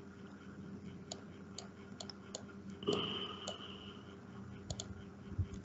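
Faint, scattered computer mouse clicks, about eight of them spread irregularly, with a brief high tone lasting about a second about three seconds in.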